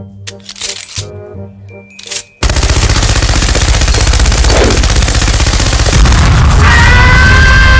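A short jingly music passage, then a sudden loud, fast rattling noise for about four seconds, then a vehicle horn blast held for about two seconds near the end.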